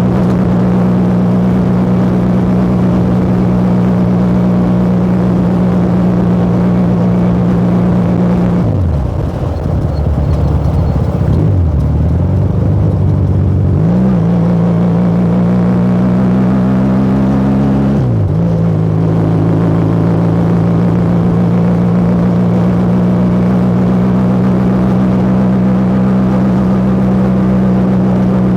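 Motomel Rider 250 motorcycle engine and exhaust running at steady cruising revs, the revs falling off about nine seconds in and staying low for a few seconds, then climbing again from about fourteen seconds. Near eighteen seconds the revs drop sharply and recover, and they hold steady again through the rest.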